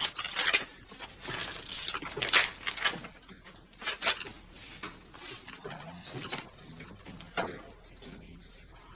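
Paper rustling in short, irregular strokes, with a few light knocks: the pages of books being leafed through. The strokes come thickly at first and grow sparser after about four seconds.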